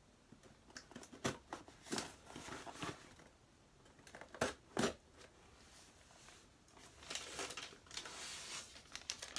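Scissors snipping and packing tape being cut and torn open on a parcel: scattered sharp snips and clicks through the first half, then a longer stretch of tearing and rustling near the end.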